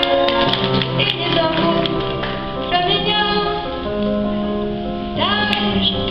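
A woman singing a slow song over her own piano accompaniment. She holds long notes, and a note slides upward about five seconds in.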